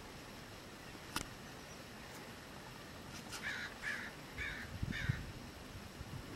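A crow cawing four times in an even series, about half a second apart, after a single sharp click about a second in.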